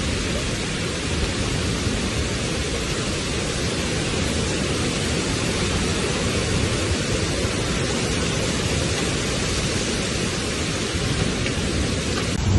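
Heavy rain and strong wind of a severe storm, heard as a steady, even rush of noise without breaks.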